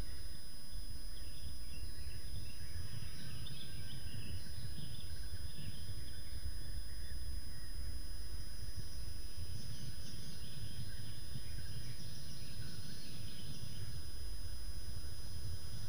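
Outdoor ambience: a steady low rumble with faint songbird chirps, clearest a few seconds in and again just past the middle, over a thin steady high electronic whine.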